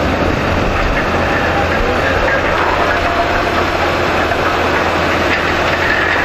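Self-propelled sugar beet cleaner-loader running steadily, its diesel engine humming under a dense rattle of beets tumbling over the spiral cleaning rollers of the intake table and up the conveyor.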